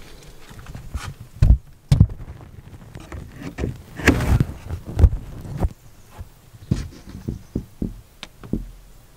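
Irregular knocks and thumps, several heavier ones in the first half, then a run of lighter, quicker taps.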